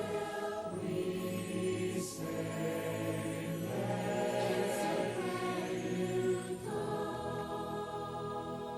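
Choir holding long sustained chords with accompaniment: the closing bars of a musical song, the chords shifting every second or two.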